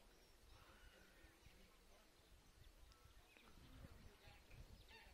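Faint, scattered short calls of greylag geese and their goslings, heard over a low background rumble.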